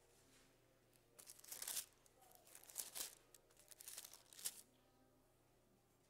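Faint rustling of thin Bible pages being turned, in three short bursts, picked up close by a handheld microphone.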